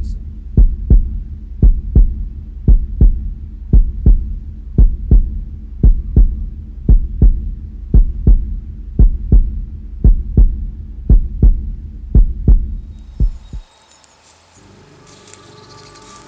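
Heartbeat sound effect: pairs of low thumps, about one pair a second, over a low hum, which stop suddenly near the end. Faint music follows.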